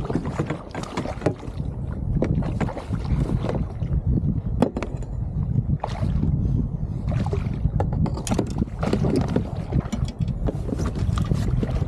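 Wind buffeting the microphone over water slapping at a kayak, with many short splashes and knocks as a hooked fish thrashes at the surface alongside and is brought into the landing net.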